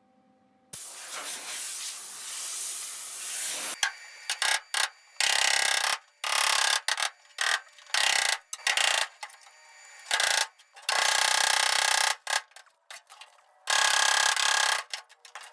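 A welder tack-welding thin sheet-metal body panels: a string of about eight short welding bursts, each a fraction of a second to a second long, that switch on and off sharply. They follow a few seconds of steadier hiss.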